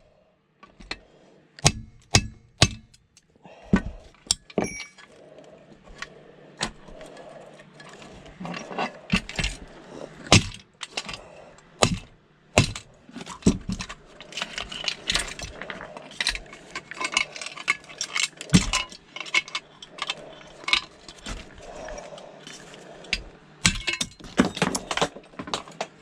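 Hand work on a stuck metal part: a few sharp knocks in the first four seconds, then a long run of irregular clinking, rattling and scraping of metal as the part is worked loose.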